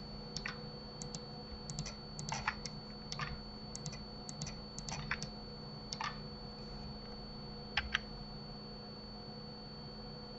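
Computer keyboard and mouse clicks in irregular clusters as Blender hotkeys are pressed and mesh faces are selected, ending with a quick pair of clicks near the end; a faint steady hum and thin high whine run underneath.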